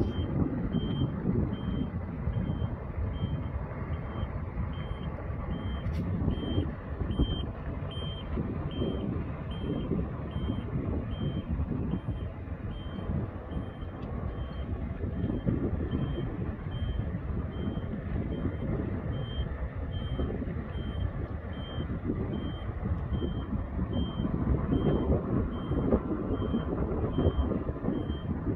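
Motion warning alarm of a 60-tonne WISE mobile boat hoist beeping steadily, about three beeps every two seconds, over the low running of the hoist's JCB engine as it drives and steers under load.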